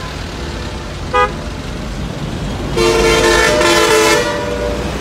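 Road vehicle horn in heavy traffic: a brief toot about a second in, then a longer, louder blast of about a second and a half near the middle, over the steady rumble of truck and bus engines.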